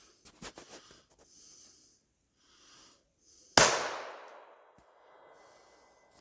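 A few small clicks, then about three and a half seconds in a single loud gunshot whose echo dies away over about a second and a half.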